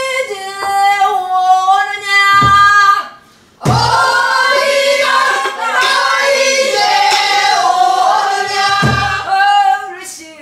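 Pansori singing in a call-and-response lesson: a woman's solo voice sings a line, then after a brief pause a group of voices sings it back together. Three low buk drum strokes mark the beat.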